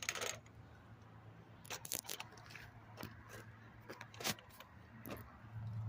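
Scattered light clicks, clinks and rustles of junk being handled and moved about, one sharper knock a little after four seconds, over a low steady hum that grows slightly louder near the end.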